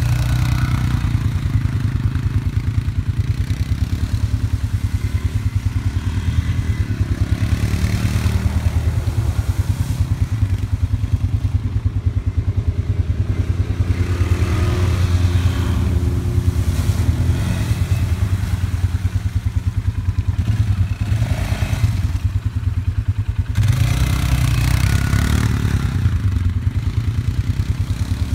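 Off-road vehicle engines: a close engine running with a steady low throb throughout, and a youth ATV's engine revving up and down at times as it rides through mud puddles.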